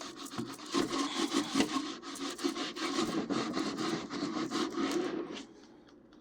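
Hand wiping the inside walls of a toaster oven, rubbing at baked-on grease softened with dish spray, in quick back-and-forth strokes that stop about five seconds in.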